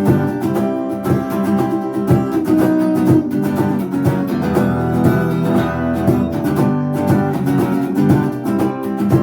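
Acoustic guitar strummed in a steady rhythm, an instrumental stretch of a song with no singing.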